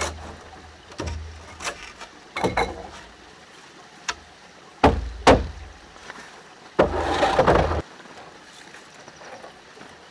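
A hand saw's last strokes through a wooden board, then scattered sharp wooden knocks as the cut pieces are handled on a plank deck, and a one-second scrape of wood on wood about seven seconds in.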